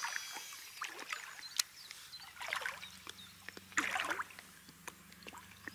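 Light splashing and lapping of water around a belly boat, with scattered small clicks and knocks of handled tackle; a faint low hum comes in about two seconds in.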